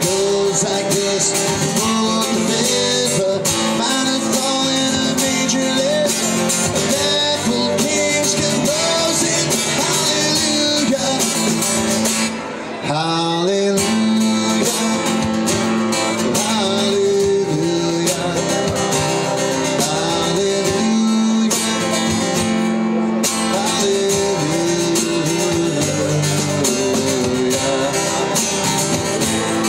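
Country band playing an instrumental passage led by guitar, without vocals, with a brief drop in level about halfway through.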